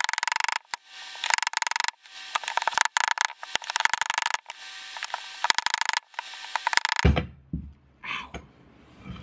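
Rubber mallet hammering the lip of a dented metal electric unicycle rim to bend the dent back out. Each blow makes the rim ring, and the blows come very fast in runs with short pauses. About seven seconds in the hammering stops, and a low thud and quieter handling follow.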